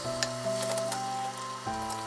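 Gentle background music moving through held notes, over faint sizzling and light clicks from frying, with one sharp click about a quarter second in.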